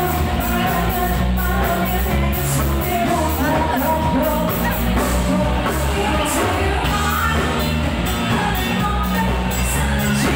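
Live band playing: drums, bass and electric guitar under singers on microphones, with a strong steady bass.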